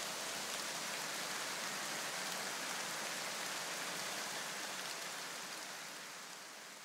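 Steady rain-like hiss that slowly fades away over the last couple of seconds.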